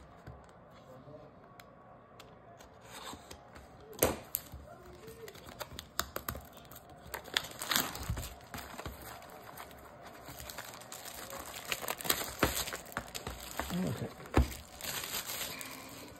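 Plastic wrapping of a box and packs of baseball trading cards crinkling and tearing as they are opened, with scattered sharp knocks from handling. The crackling is sparse at first and busier through the second half.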